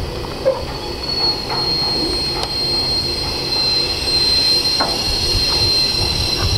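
Jordan spreader rolling slowly along the track with its ditching wing out: a thin, steady high-pitched wheel squeal that grows louder about a second in, over a low rumble, with a few clicks and knocks.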